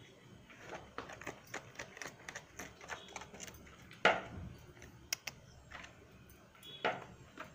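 Quick, scattered clicks and scratching as a small pet animal scrabbles in a cardboard box and a hand tugs at the cloth lining it, with a louder knock about four seconds in and another near the end.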